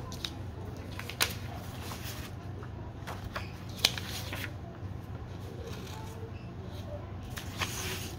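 Sheets of construction paper rustling and sliding against each other as they are sorted by hand on a desk, with a few sharp crackles, over a steady low hum.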